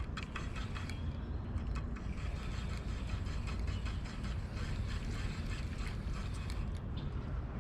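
Fishing reel being cranked to wind in the line after the fish came off, its gears giving a quick run of fine ticks over a steady low rumble.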